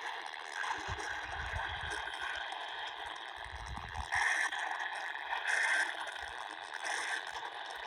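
Hiss and static of a weak radio broadcast, with a couple of low rumbles in the first half. Three short data bursts come about a second and a half apart in the second half, in the pattern of EAS end-of-message bursts.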